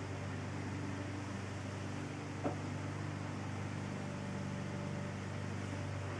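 Steady low hum over a faint hiss: room tone, with one small click about two and a half seconds in.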